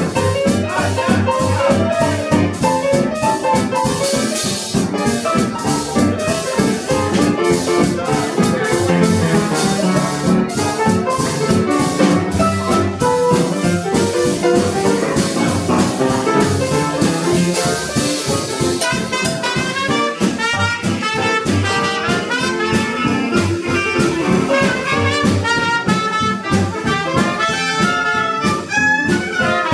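Traditional New Orleans jazz band playing live: clarinet, upright bass and drum kit keeping a steady swing beat, with the trumpet coming in with the melody about two-thirds of the way through.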